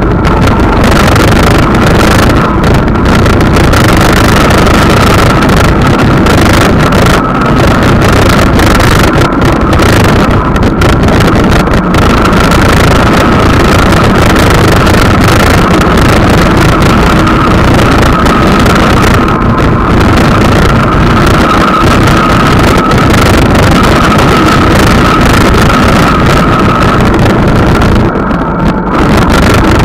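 Vehicle driving along a road: loud, steady engine, tyre and wind noise on a dashcam's microphone, with a steady high whine that fades near the end.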